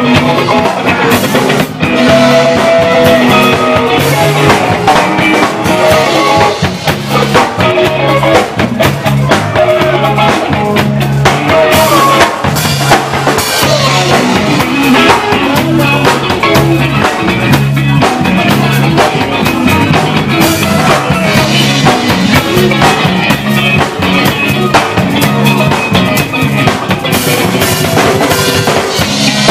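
Live blues band playing an instrumental stretch: electric guitar over a bass line and a drum kit keeping a steady beat, loud and dense.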